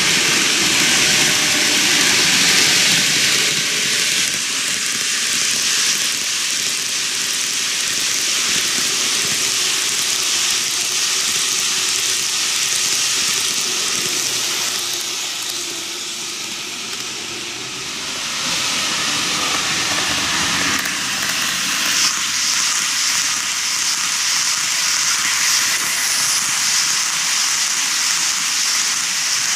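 TOMIX N gauge model of a 15-car JR 185-0 series train running on TOMIX superelevated plastic track: a steady rolling hiss of the wheels and motor, with a slight dip in the middle and a brighter edge in the last third as the train passes close.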